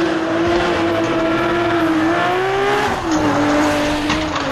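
Race car engine sound effect running at high revs, a steady engine note that climbs a little in pitch and then drops about three seconds in.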